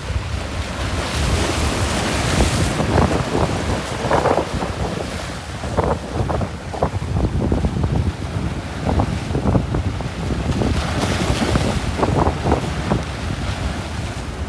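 Sea waves washing and splashing, with strong wind buffeting the microphone in a steady low rumble. The hiss of the water swells up twice, about a second in and again near the end.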